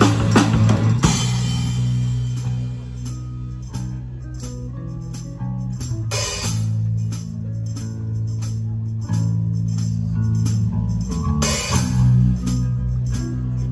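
Rock band playing live: electric guitars and bass holding long low notes over a drum kit. Cymbal crashes ring out at the start, again about six seconds in, and near the end, with a quieter stretch between.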